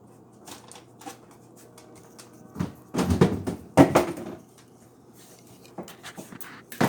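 Drinks in an open refrigerator knocking and rattling as a dog pulls one out with its mouth: scattered light clicks, a loud cluster of knocks and clatter about three to four seconds in, and one sharp knock near the end.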